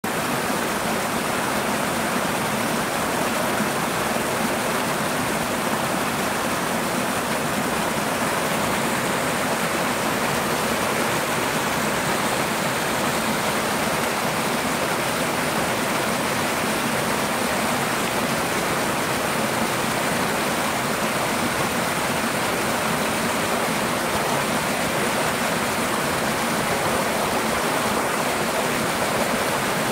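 Two small twin waterfalls splashing over rocks into a shallow pool: a steady rush of falling and churning water that does not change.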